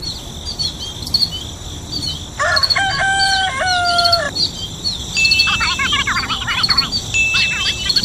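Countryside ambience: a constant high insect drone with small birds chirping over it, a rooster crowing for about two seconds starting about two and a half seconds in, then another bird warbling.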